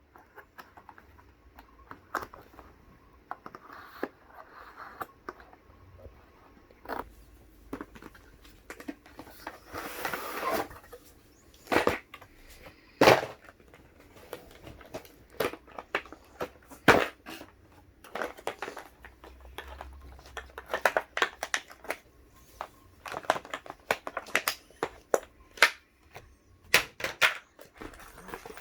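Hands opening the packaging of a diary stationery set: scattered clicks, taps and rustles of cardboard and plastic, with a longer rustling stretch about ten seconds in and a busier run of clicks near the end.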